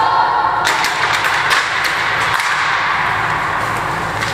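A quick run of sharp taps and knocks starting about a second in and thinning out, over a steady low hum.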